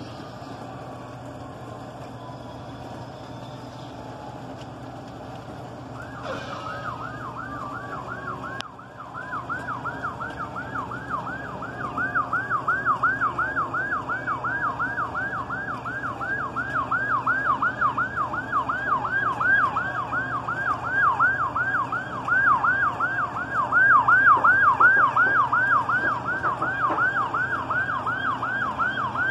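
Fire engine siren in rapid yelp mode, starting about six seconds in and growing louder as it approaches. A slow, faint falling wail is heard before it.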